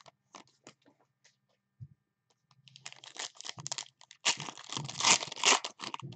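Plastic packaging of a trading-card box being torn open and crinkled: a few light clicks at first, then a run of crackling tearing from about three seconds in that grows louder toward the end.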